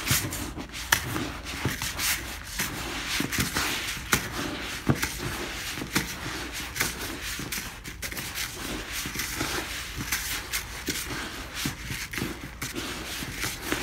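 A hand stirring and kneading damp trout chow pellets in a bowl to work the flavorings in: a steady gritty rustling with many small clicks.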